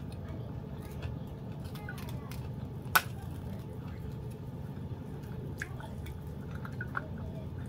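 Close-up eating sounds of a person eating rice and prawn crackers by hand: wet chewing and small mouth clicks over a steady low hum, with one sharp, loud snap about three seconds in.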